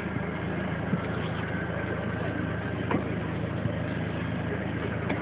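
Steady low hum of an idling engine under faint street noise.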